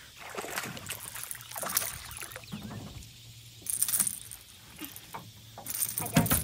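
A hooked fish splashing at the surface as it is reeled to a small boat, with a burst of splashing about four seconds in as it is lifted from the water, then a thump near the end as it lands on the boat's floor.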